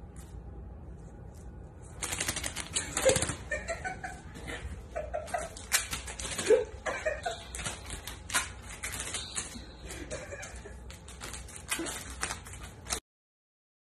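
Paper squares stuck to a cat's paws crackling and scraping on a tile floor as the cat steps, a quick run of crisp rustling clicks that starts about two seconds in and cuts off suddenly near the end.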